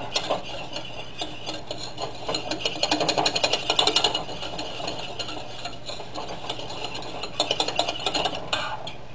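Wire whisk scraping and clicking against a stainless steel saucepan as a roux is stirred in quick strokes. The strokes are busiest a few seconds in and again near the end, then die away.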